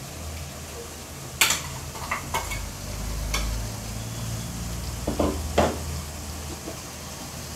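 A metal slotted spoon clinking and tapping against a steel mixer-grinder jar and the cooking pan while ground masala paste is scraped out into frying prawns, over a low sizzle from the pan. The sharpest knock comes about a second and a half in, and two more come close together near the end.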